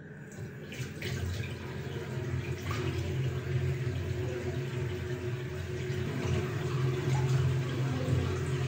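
Water running steadily, as from a tap into a sink, over a low steady hum, with a few faint clicks.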